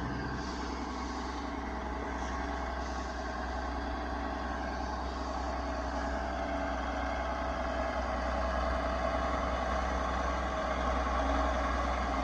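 Kenworth T800 logging truck's diesel engine running steadily at low revs.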